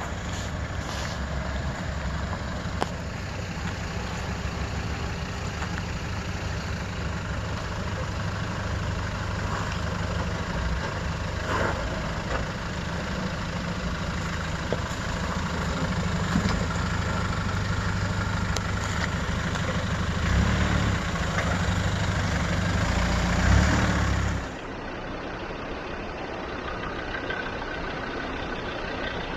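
Land Rover Discovery 1's 300Tdi four-cylinder turbo-diesel engine running under load as it crawls over a rock step, getting louder toward the end. About 25 seconds in the sound cuts to a quieter, more distant engine: a TD5 Discovery 2 on the rocky track.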